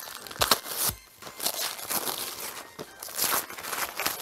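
Wrapping paper crinkling and tearing in irregular bursts as a small gift-wrapped box is unwrapped by hand.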